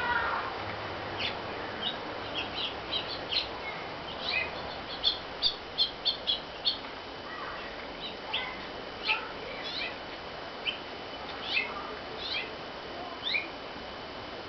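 Small birds chirping: many short, high calls, often falling in pitch, scattered throughout, with a quick run of them about five to seven seconds in.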